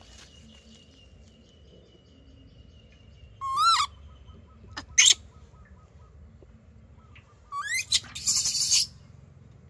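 Baby macaque calling in high-pitched squeals: a rising-and-falling call about three and a half seconds in, a short sharp squeak at about five seconds, and another rising call near the end that breaks into a loud harsh burst.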